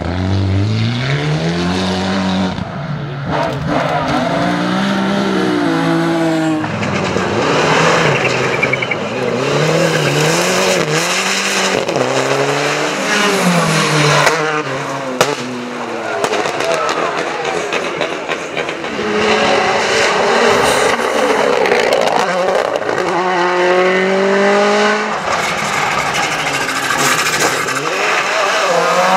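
Several rally cars passing at speed one after another, their engines revving hard. The pitch climbs and drops over and over through gear changes and lifts off the throttle. A Volkswagen Polo GTI R5 comes through near the end.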